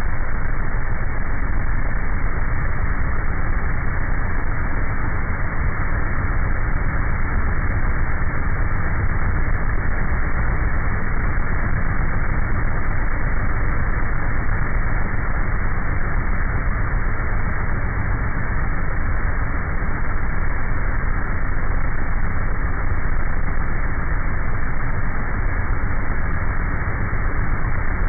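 Airboat engine and propeller running steadily at cruising speed, a loud, even roar with no break.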